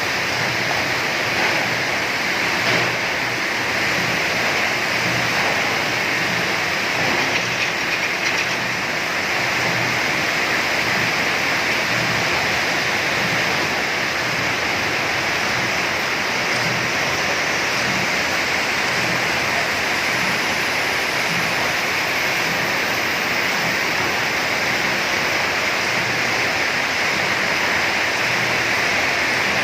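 CNC hexagonal wire netting machine running, a steady dense clatter and hiss with a faint regular low pulse.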